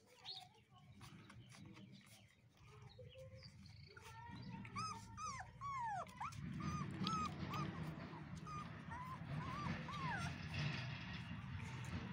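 Dogo Argentino puppies whimpering and squeaking as they crowd under their mother to nurse: many short, high squeals that rise and fall in pitch, thickening about four seconds in, over a low steady rumble.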